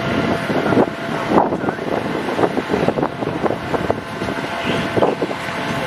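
Wind gusting over the microphone in rough, uneven buffets, over a steady drone of vehicle engines.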